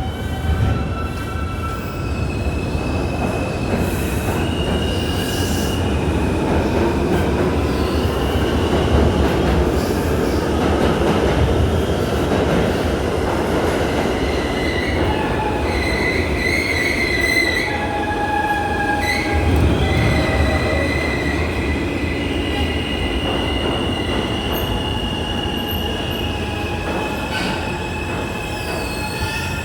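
Subway train running on the track with a steady rumble, its wheels squealing on and off in high-pitched tones.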